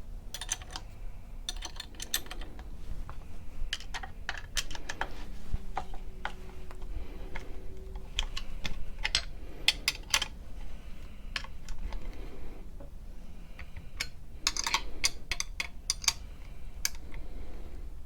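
Irregular sharp metallic clicks and clinks in short runs with pauses, from a wrench tightening the bolts of a reloading-press mounting plate.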